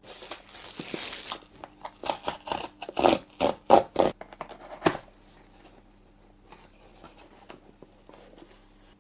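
Cardboard packaging being opened and handled: a scraping slide of cardboard, then a run of knocks and rustles over the first five seconds.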